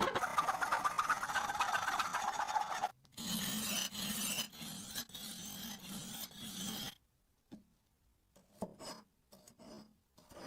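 A knife blade being worked against an abrasive. It rasps without a break for about three seconds, then in a series of separate strokes with short gaps, and then comes a few faint short scrapes and taps.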